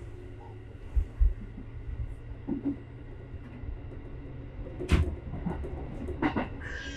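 Train running on the rails, heard from inside the train: a steady low rumble, with a pair of low thuds about a second in and a sharp clack about five seconds in as the wheels pass over rail joints.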